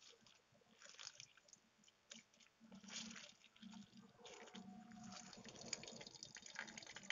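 Hands squeezing water out of grated bottle gourd, the water dripping and trickling back into a steel plate of water. Faint short splashes at first, then a steadier trickle in the second half.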